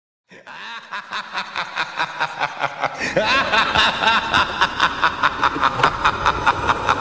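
Soundtrack music fading in out of silence: a quick, even clicking beat about three to four times a second, growing fuller and louder about three seconds in, with gliding pitched sounds over it.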